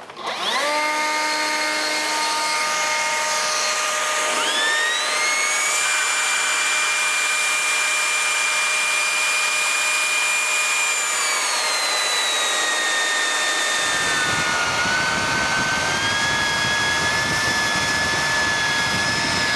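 DeWalt DCBL720P1 20V brushless cordless leaf blower switched on and spinning up, then running steadily at full speed with a high whine over rushing air. About four seconds in a second, rising whine joins, the vane of a handheld anemometer spinning in the blast at the tube outlet. That whine drops in pitch a few seconds later as the meter is drawn back from the tube.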